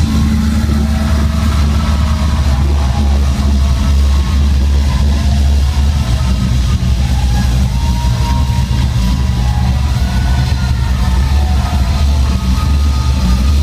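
Indie rock band playing live at full volume: a dense, steady low-end rumble of bass guitar and drums dominates, with guitar lines faint above it.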